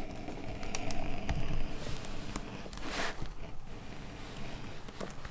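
Adjustable edge groover drawn along the edge of a vegetable-tanned leather pouch piece, its blade scraping out a groove that serves as decoration and as a guide for the stitching holes. There is one long scraping stroke for about two seconds, with a few light clicks, then a shorter stroke about three seconds in.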